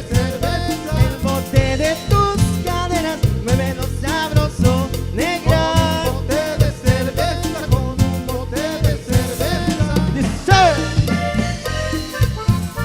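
Tropical cumbia band playing an instrumental passage: a lead melody over bass and a steady dance beat, with a falling slide in the lead about ten seconds in.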